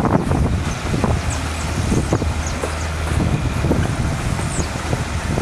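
Rail maintenance motor car's engine running as it moves off along the track, with a few short metallic clanks from its wheels and wind on the microphone.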